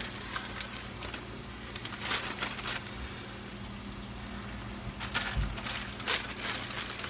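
Broccoli florets being handled and dropped into a dish, heard as rustling and crinkling in a few short bursts over a steady low hum.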